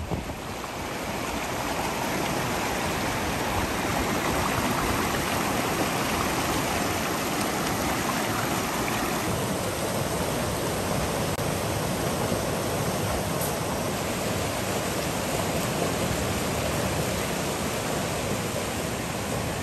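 Fast, silty mountain river rushing over stones: a loud, steady rush of water that swells in over the first couple of seconds.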